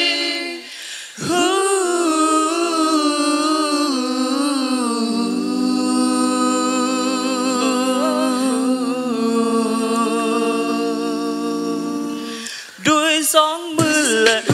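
A cappella nasyid vocal group singing sustained wordless chords in several parts, the low voice stepping down twice under the held harmony. Near the end a more rhythmic vocal part starts, with sharp percussive clicks.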